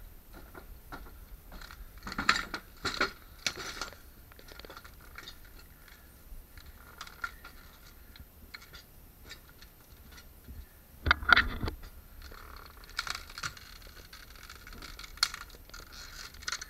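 Scattered rustling, light clicks and scrapes from a handheld camera being moved about. The noise comes in a few short bursts: one a couple of seconds in, and a louder one about two-thirds of the way through.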